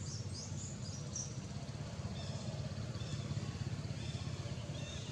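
A steady low rumble under birds chirping: high chirps in the first second, then fainter repeated chirps from about two seconds in.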